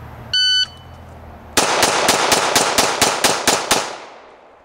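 A shot timer beeps once, and about a second and a quarter later a Glock 21SF .45 ACP pistol fires ten rapid shots in a little over two seconds, the echo dying away after the last one. This is a timed draw-and-fire string.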